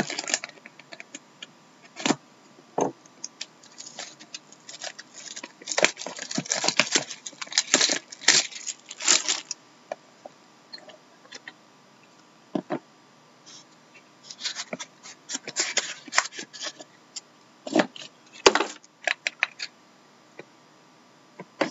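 Silver foil wrapper being torn and crumpled off a trading-card box, crinkling and crackling in two long spells, with scattered clicks and a few knocks as the box is opened and handled.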